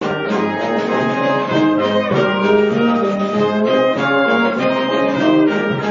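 School brass band, with tubas, baritones and trumpets, playing a piece in held notes that change every half second or so.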